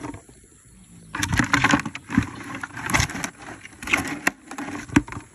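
Dry sticks dropped and tossed into a container, clattering and knocking against it and each other in a string of clusters from about a second in.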